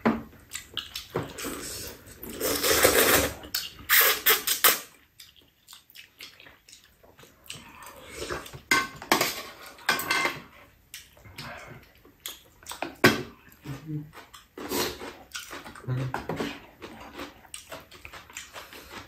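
Two people eating noodles: slurping and chewing, with metal utensils clicking against the bowls. The sounds come in irregular bursts, heaviest in the first five seconds.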